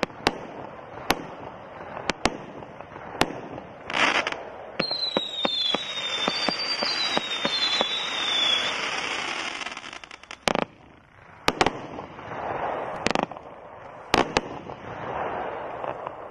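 A consumer fireworks cake firing its shots: sharp reports as the shells break, then a dense stretch of crackling with several short whistles. A few last reports follow, and the crackle fades as the cake burns out.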